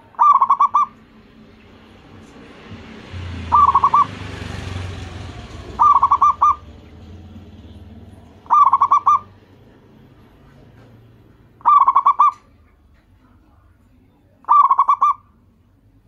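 Zebra dove (perkutut) singing: six short phrases of rapid cooing notes, one about every three seconds.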